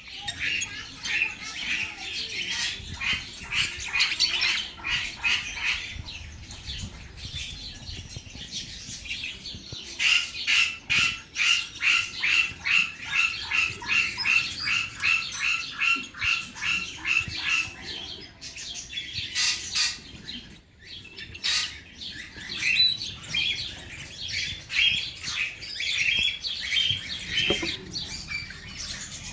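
Budgerigars chattering and chirping, with a fast, even run of repeated chirps, several a second, in the middle.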